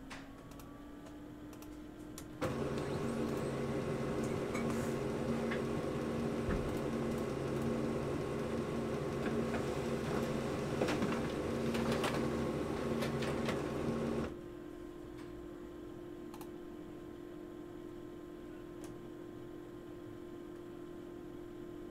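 An electric machine's motor hum winding up, then a louder mechanical run with clicking for about twelve seconds, dropping back to the hum, which winds down near the end.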